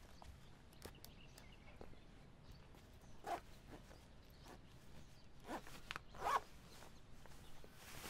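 Quiet room tone with faint clicks and three short rasping rustles, the loudest about a second before the end, like a man's fabric jacket and hands moving as he handles things at an altar.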